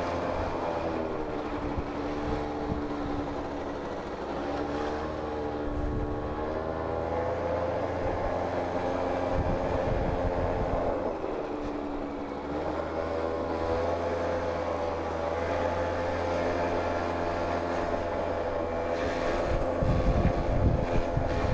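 Suzuki Street Magic scooter's engine running while riding, heard from on the bike. Its pitch drops as it eases off a second or so in and again around the middle, then climbs and holds steady.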